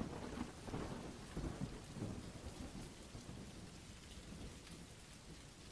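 Faint rain-and-thunder sound effect: steady rain with a low rumble of thunder over the first couple of seconds that dies away.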